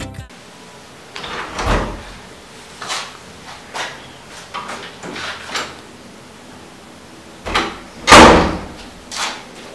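A room door being handled and pushed shut: a run of soft knocks and thuds, then one loud bang a little after eight seconds in, and a last small knock about a second later.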